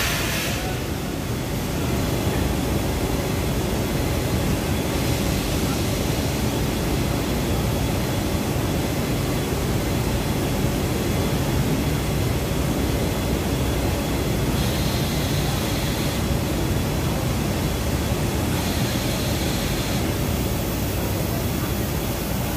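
Steady low rumble and hum of machinery in a yarn-dyeing plant, with three brief spells of added high hiss.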